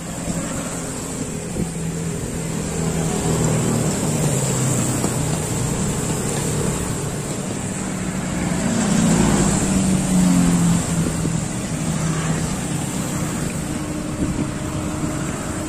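Truck engine running on the road close by, a steady drone that grows louder about nine seconds in and then eases off.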